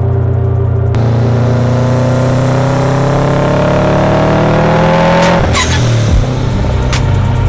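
Subaru WRX STI's turbocharged flat-four boxer engine rumbling as it accelerates: the pitch climbs steadily for about four seconds, then drops suddenly as the revs fall. A few sharp cracks follow.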